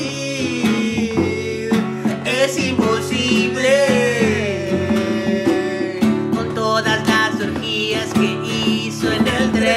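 Background music: a guitar-led song with plucked strings and a voice singing over it.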